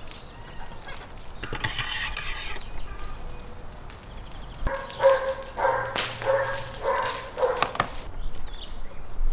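A dog barking five times in quick succession, about half a second apart, a few seconds in, after a short rustling noise.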